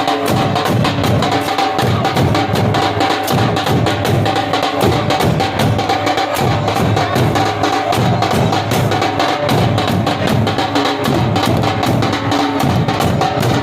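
Drums beaten in a fast, continuous rhythm, typical of Muharram procession drumming.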